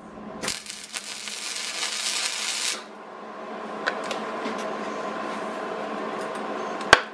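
Wire-feed (MIG) welder tack-welding a steel corner plate onto a steel tube frame: a crackling sizzle of about two seconds that cuts off sharply. A steady hum follows, and a single sharp click comes near the end.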